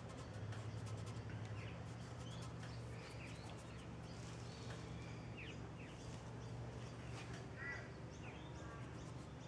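Birds chirping now and then in the background, with one louder call near the end, over a steady low hum. Faint scratching of fingertips rubbing sawdust into sticky polyurethane in a crack in the wood.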